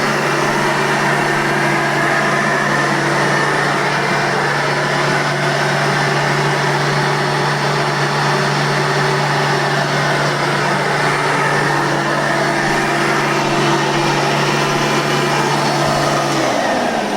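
Hoover Elite 2 430 upright vacuum cleaner running steadily with a constant motor hum and rushing air. Near the end it is switched off, and the motor's pitch falls as it winds down.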